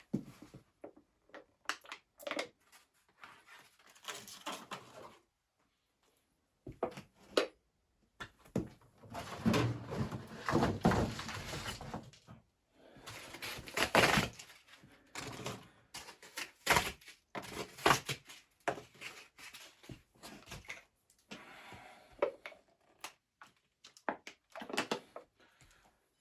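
Irregular knocking, thudding and rustling of objects being handled at close range in a small enclosed space, denser about a third of the way in and quieter near the end.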